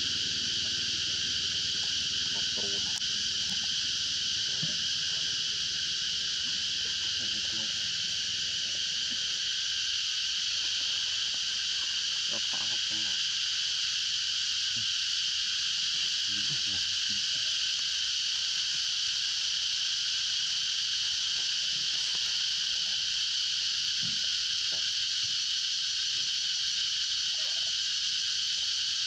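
Steady high-pitched drone of an insect chorus that holds the same level throughout, with faint soft rustles and taps in dry leaves underneath.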